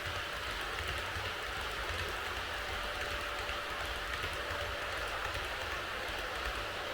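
HO gauge model freight train running on track: a steady rolling rumble from the Tenshodo Waki 10000 wagons' wheels on the rails, with a thin, steady motor whine.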